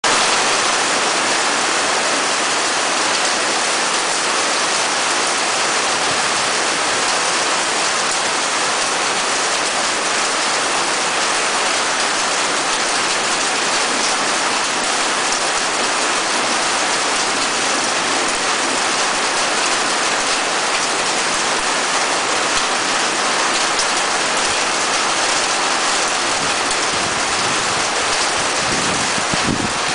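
Loud, steady rushing noise, even and unbroken throughout, with no tones or distinct events in it.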